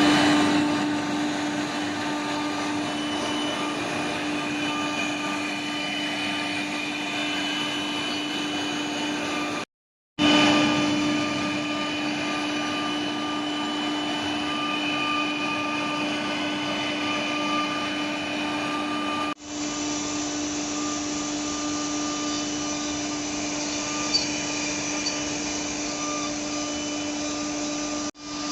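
CNC router running: a steady mechanical whine with a constant hum under it. It drops out briefly about ten seconds in, and the sound changes slightly about nineteen seconds in where clips are joined.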